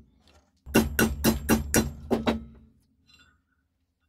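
Hammer blows on metal over a steel bench block: about seven quick, ringing strikes at roughly four a second, followed by a faint click.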